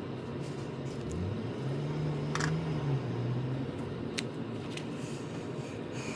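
A few light, sharp clicks of small tools and parts being handled during a phone repair, over a steady low background hum. About a second in, a low drone rises and holds for about three seconds.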